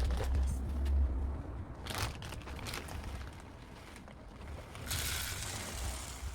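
Rustling and crinkling of packaging being handled, in short bouts about two seconds in and again near the end, over a low rumble.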